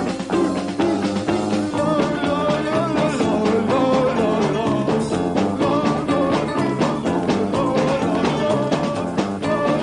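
A rock band playing live: drums, bass guitar and electric guitar over a steady driving beat.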